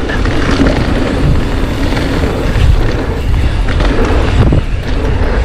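Wind buffeting the microphone of an action camera mounted on a mountain bike during a fast descent on a dirt trail, a steady low rumble, with tyre noise and a few knocks from the bike over bumps.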